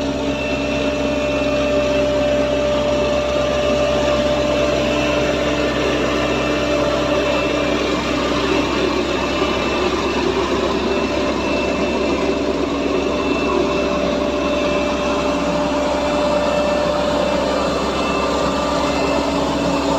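Heavy diesel earthmoving machinery running steadily during vibratory soil compaction: a constant low engine rumble with a few steady whining tones over it.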